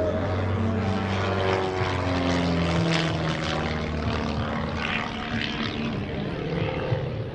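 Pitts aerobatic biplane's piston engine and propeller during an aerobatic manoeuvre overhead; the engine note glides down in pitch over the first three seconds, then steadies at a lower note.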